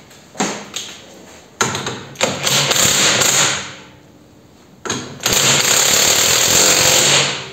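Handheld power tool run in two bursts of about two seconds each, with sharp knocks before them, while a coil-spring shock absorber is being put back together in a vise.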